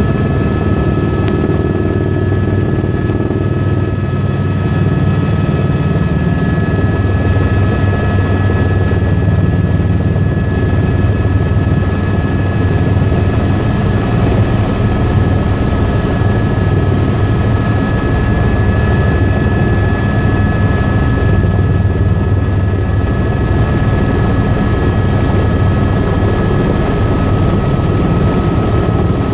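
Tour helicopter in flight, heard from inside the cabin: a loud, steady rotor and engine drone with a constant high whine over it.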